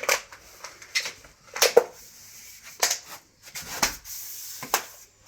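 Plastic trunking and socket parts being clipped into place by hand: a string of sharp plastic clicks and snaps, about seven in five seconds, with a brief scraping rub near the end.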